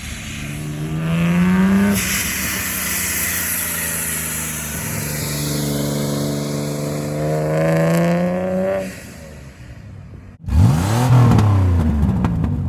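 Car engines accelerating hard: one climbs in revs, shifts gear about 2 s in and pulls up again until it fades near 9 s; after an abrupt cut, another car goes past loud, its engine pitch rising then falling.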